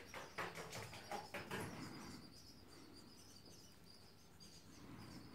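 Faint brushing and light taps of a paint brush working copper grease onto a brake caliper's slide pins, dying away after about two seconds into low room tone with faint high chirping in the background.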